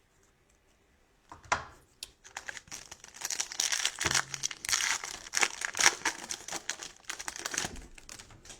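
Crinkly plastic-foil wrapper of a trading-card pack being torn open and handled. A short loud rustle comes about a second and a half in, then several seconds of dense irregular crinkling.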